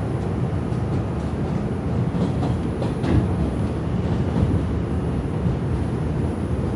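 Steady rumble of a New York City subway train's wheels and motors, heard from inside the car as it runs along an elevated station platform, with a few faint clicks about two to three seconds in.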